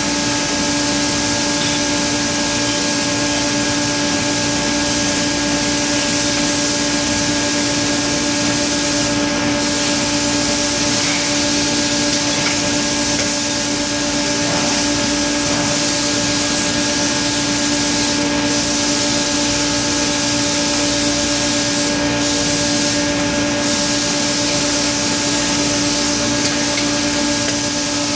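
Automatic rotary card press laminator running: a steady machine hum over a constant high hiss.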